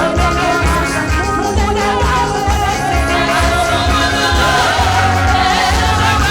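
Gospel praise-and-worship music: singing over a band with a steady, even beat in the bass.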